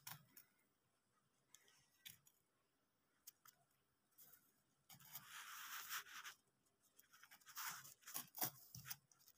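Mostly near silence, broken by faint handling noise as a rock specimen is turned in the hand: a few small clicks, then two short stretches of rustling scrape, about five and about seven and a half seconds in.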